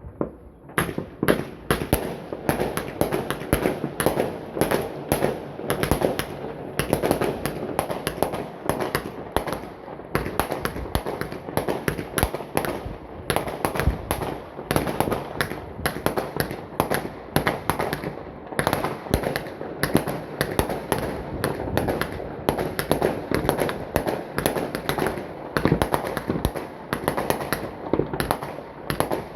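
Many fireworks going off at once: a dense, unbroken barrage of overlapping bangs, pops and crackles that starts about a second in.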